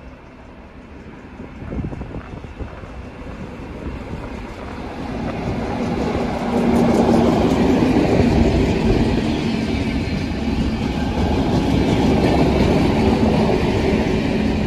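Class 218 diesel-hydraulic locomotive hauling passenger coaches past at close range: its engine drone and the rumble of the wheels grow louder over the first half and then hold loud and steady.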